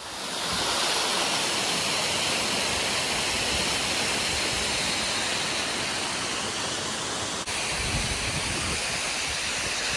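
Waterfall pouring down a steep rock face close by: a loud, steady rush of falling water.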